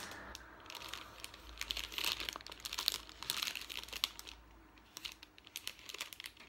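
Plastic snack-packet wrapper crinkling and rustling as it is turned over in the hands, in irregular crackles that thin out near the end.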